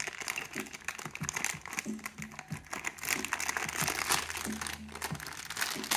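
Thin clear plastic packaging crinkling and rustling as a bag of toy play food is pulled open and handled, a dense run of small crackles, with music in the background.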